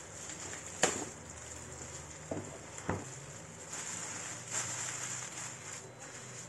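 Hands handling packaging: a sharp click about a second in, two softer knocks a little after two and three seconds in, then a few seconds of rustling.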